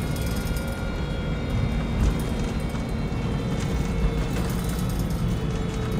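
Cummins diesel engine retrofitted to a MAN 18.240 bus, running steadily, heard from inside the passenger saloon.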